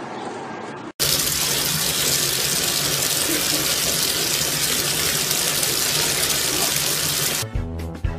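Water running into a bathtub: a loud, even rush that starts abruptly about a second in and stops near the end, where music with a steady beat takes over.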